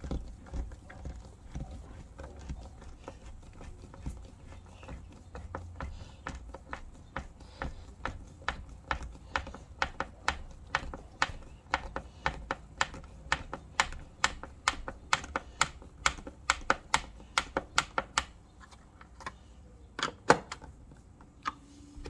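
Hand screwdriver turning a screw into a plastic doorbell mounting plate: a run of sharp clicks that grows to a fairly even two or three a second, with one louder knock near the end.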